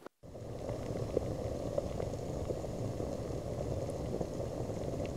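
Water boiling in a stainless steel saucepan, bubbling steadily with a dense patter of small pops. It starts suddenly a fraction of a second in.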